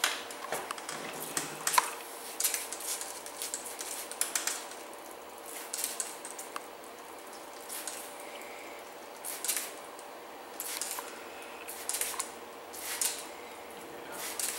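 A hand-held trigger spray bottle giving short hissing squirts of slip solution at irregular intervals while clear paint protection film is worked wet onto a car's front bumper, with small handling noises of the wet plastic film between.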